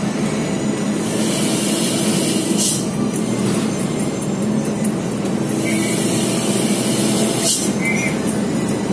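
Hino truck's diesel engine running as the truck rolls, with the exhaust brake being worked from its stalk, heard from inside the cab. Twice a hiss of about two seconds ends in a sharp click.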